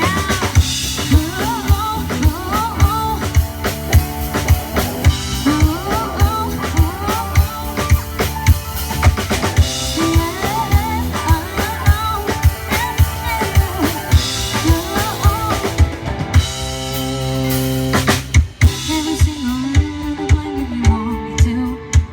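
Live band music: a drum kit keeping a steady beat with kick, snare and rimshots under a melodic lead line. About sixteen seconds in the playing changes, with a run of drum hits before the band carries on.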